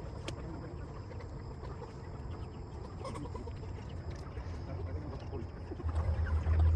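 Broiler chickens clucking, with a low rumble underneath that grows louder near the end.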